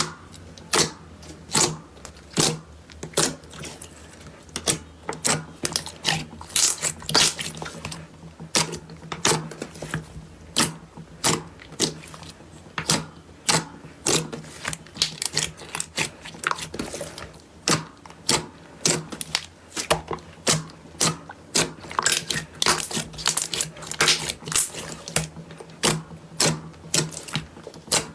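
Slime being pressed and squeezed by hand, giving irregular sharp clicks and pops, a few a second, over a faint steady low hum.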